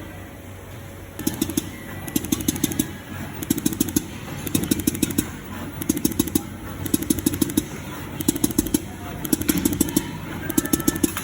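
Automatic silicone dispensing machine running in stop-start moves: short bursts of rapid ticking, about one burst a second, begin about a second in over a steady hum.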